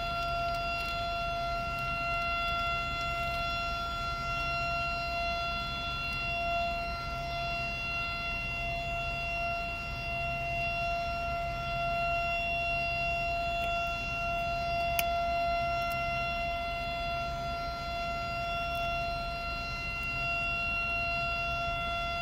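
Quarry blast warning siren sounding one steady, unchanging tone ahead of a detonation.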